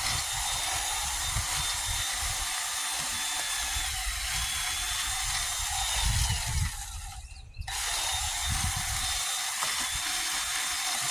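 Electric drill running with a long electrician's drill bit, boring into a clogged drain pipe. The motor whine dips briefly twice as it slows under load. The drill stops for a moment about seven seconds in, then starts again.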